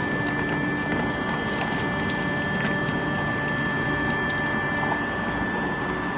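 Footsteps crunching on gravel as a 5-inch gauge model steam locomotive (German BR 50) is pushed by hand along the track, its wheels rolling on the rails. Under it runs a steady hiss with a faint high whine.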